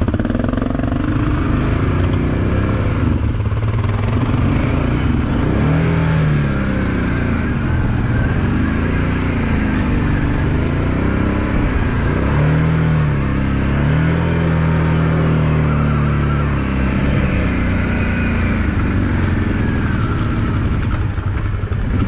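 Kawasaki KVF 750 Brute Force ATV's V-twin engine running as it is ridden, the revs rising and falling again and again with the throttle.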